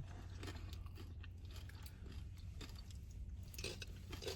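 A person chewing and crunching tortilla-chip nachos close to the microphone, with a few louder crunches near the end.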